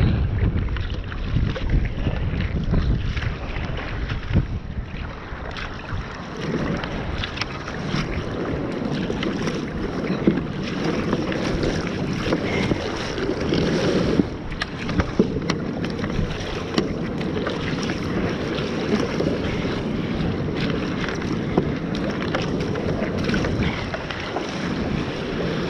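Wind buffeting the microphone and water rushing and splashing against a surfski's hull as it moves through choppy sea. The low wind rumble is strongest in the first few seconds, and the rushing water grows louder from about six seconds in.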